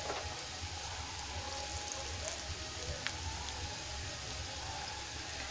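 Slices of besan-coated mint patode shallow-frying in hot mustard oil in a nonstick pan: a steady sizzle with a few small crackles.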